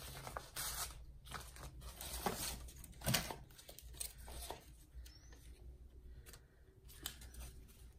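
Sheets of patterned paper and magazine pages rustling and crinkling as they are handled and shuffled, with a few sharp taps. It is busiest in the first half and thins out to occasional soft rustles after about five seconds.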